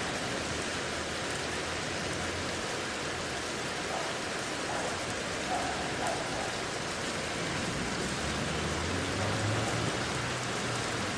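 Steady rain from a thunderstorm falling and pattering on surfaces, with a faint low rumble toward the end.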